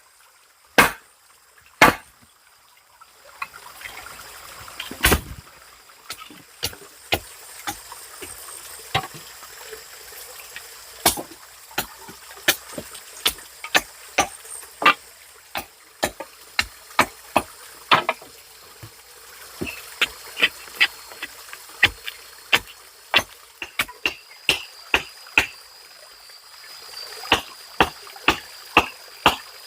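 Repeated chopping blows of a hand tool into wet ground, roughly one to two a second, over steadily trickling water.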